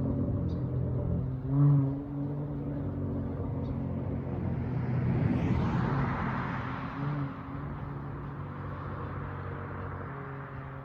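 Dodge Charger SXT's V6 through a Flowmaster Outlaw exhaust, driving slowly with a deep, steady exhaust drone. The revs rise briefly about two seconds in, a wider swell of noise builds around the middle, and the sound slowly fades toward the end.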